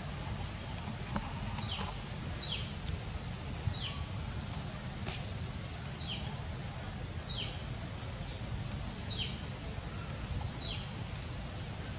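A bird calling: a short, high whistle falling in pitch, repeated about once a second.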